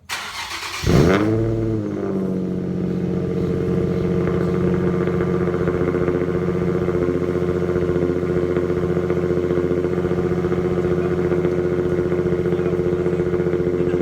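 Nissan 350Z's 3.5-litre V6 starting up: it cranks briefly, catches about a second in with a rev flare that falls away, then settles into a steady idle.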